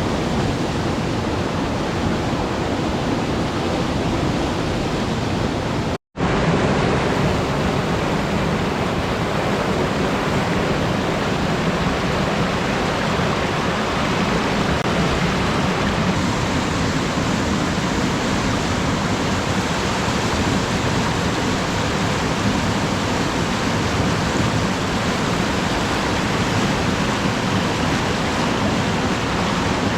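Alpine river flowing, a steady rush of water, cut off for a split second about six seconds in.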